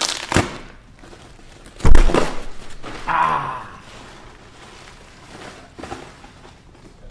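Cardboard shipping box being pulled open and handled, with scattered knocks and one loud thump about two seconds in.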